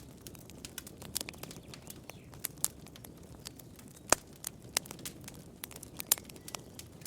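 Campfire crackling: irregular sharp pops and snaps of the burning wood over a low steady rush of flame, with the loudest pop about four seconds in.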